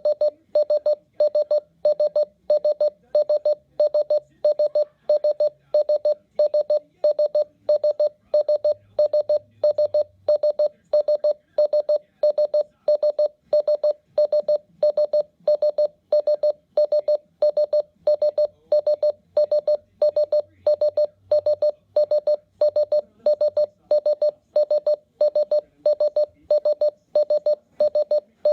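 RadioShack 12-991 weather radio clock's alarm beeping: short electronic double beeps at one fixed pitch, repeating evenly at a little over one a second.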